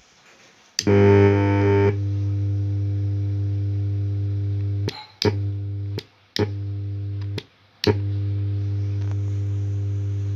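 Home theater speaker giving out a loud, steady low buzz, louder and harsher for its first second, that cuts out briefly three times with clicks. This is the beep-sound fault the repair sets out to cure.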